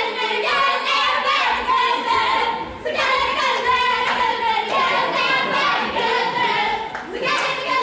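A group of voices singing a lively song together, with hand claps.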